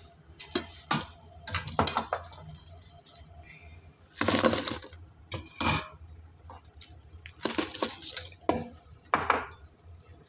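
Fried sambosas tumbling from a wire fry basket into a stainless steel pot, with the metal basket clinking against the pot: a run of sharp clinks, then two longer scraping spills about four and eight seconds in, and a few last knocks near the end.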